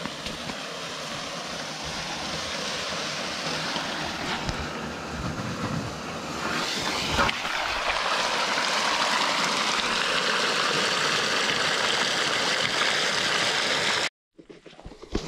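Water rushing from a fire hose fed by an electric pump, jetting through a pipe nozzle into silty, stony pond shallows. The steady rush grows louder about halfway through and cuts off suddenly near the end.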